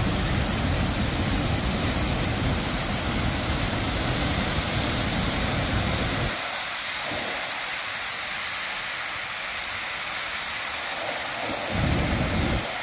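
Rushing water of the Baitarani river cascading over rocks at the Bhimkund falls: a steady, even rush. A deep rumble underneath drops away about six seconds in and comes back near the end.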